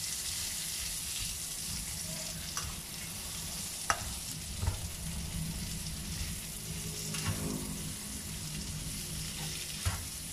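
Sliced onions and pieces of fried chicken sizzling in a little oil in a pan while being stirred with a metal spatula. The spatula scrapes the pan and knocks against it a few times.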